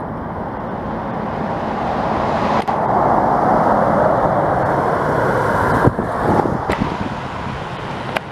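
Steady rushing noise of storm-force wind on the microphone mixed with road traffic, swelling about two seconds in and dropping off sharply near the end, with a few sharp clicks.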